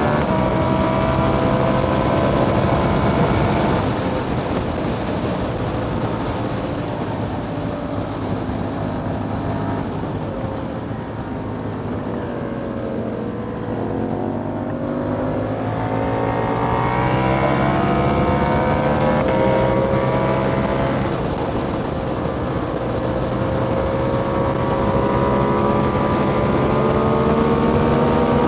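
2021 KTM Duke 890R's parallel-twin engine through an Austin Racing GP1R catless exhaust, pulling steadily under way. Around the middle the pitch falls as the throttle eases off, then climbs again as the bike accelerates.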